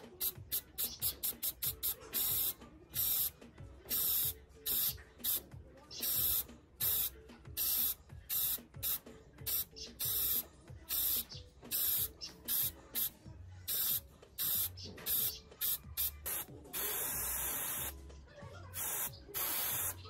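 Aerosol spray paint can hissing in many short squirts, one after another, with a longer steady spray lasting about a second and a half near the end.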